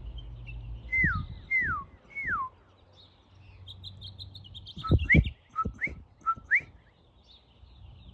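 Clear whistled calls: three notes sliding down in pitch, then a pause and four short notes sliding up. Faint high chirping of small birds sits behind them.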